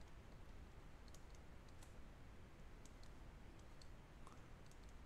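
Irregular faint light clicks of a stylus tapping on a tablet screen while handwriting, over low background hiss.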